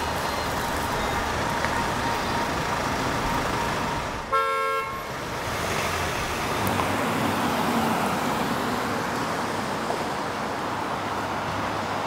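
Steady city street traffic noise, with a car horn honking once briefly about four seconds in.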